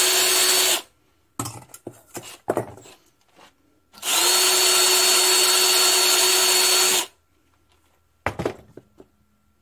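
Cordless drill spinning a twisted-wire tube brush inside the holes of an engine-governor casting, cleaning out paint and rust. It runs steadily with a fixed whine, stops under a second in, and a few light knocks and clicks follow. A second run of about three seconds comes next, then a brief clatter near the end.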